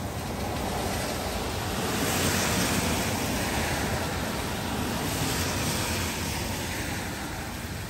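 Steady rain, with a car driving past on the wet street: the tyre hiss swells over a couple of seconds, holds, and fades away near the end.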